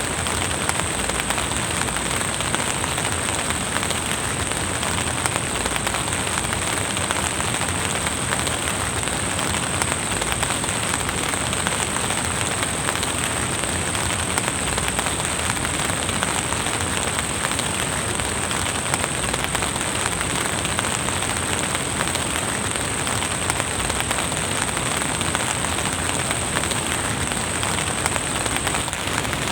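Steady rain, a dense patter of drops. A thin, steady high-pitched whine runs alongside it and stops shortly before the end.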